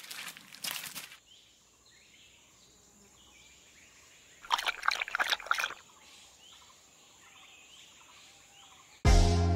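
Stock drinking sound effect: a short run of wet lapping, gulping strokes about four and a half seconds in, over a jungle ambience with repeated chirping calls and a steady high hiss. Two brief noisy bursts come in the first second, and music starts suddenly near the end.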